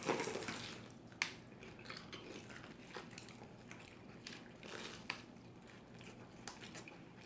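Biting into a fried peach mango pie: a short burst of noise as the pastry is bitten at the start, then quiet chewing with a few small sharp clicks.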